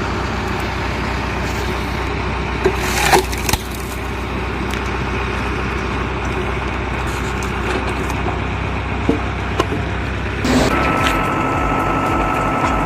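Tractor-driven vertical log splitter working off the PTO: the engine runs steadily while logs crack and splinter apart under the splitting wedge, with a sharp crack about three seconds in. Near the end the machine sound changes and a steady whine comes in.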